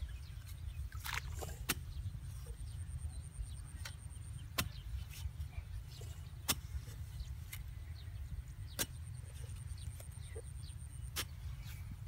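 Long-handled hoe chopping into a muddy bank, digging out a crab burrow: separate sharp strikes, about one every second or two at irregular spacing, over a steady low rumble.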